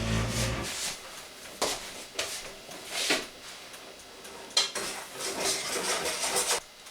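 Kitchen clatter of a cooking pot and utensils: a heavy knock at the start, then scattered clinks, knocks and scrapes.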